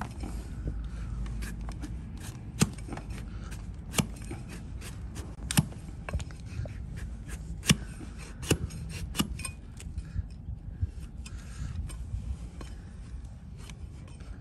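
Long-handled hoof paring blade shearing through a donkey's hoof horn on a wooden stool: a sharp crack with each downward cut, every second or two, with scraping between. The cuts grow lighter over the last few seconds.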